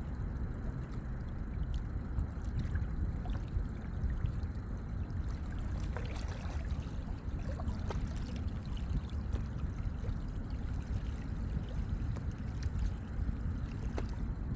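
Lake water lapping and trickling over a steady low rumble, with a few faint clicks scattered through it.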